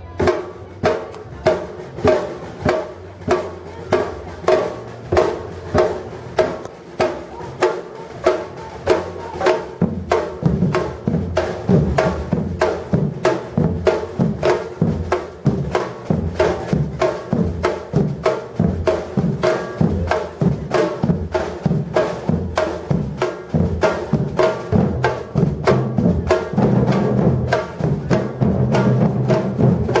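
Batucada percussion ensemble playing a samba-reggae groove: sharp drum strokes about twice a second. About ten seconds in, low bass drums join and it builds into a denser, louder rhythm.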